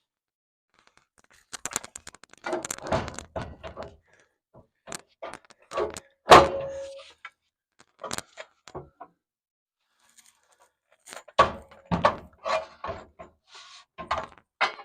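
Irregular knocks and clunks in bursts with quiet gaps, a fuel tank being wrestled up into place under a vehicle; one knock about six seconds in rings on briefly.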